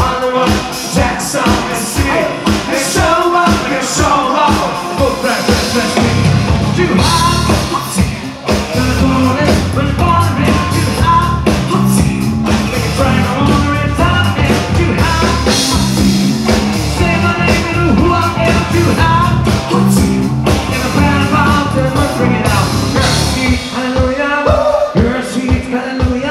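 Live rock band playing, amplified through a PA, with a man singing over electric bass and drums at a steady beat. The full low bass and band come in heavily about six seconds in.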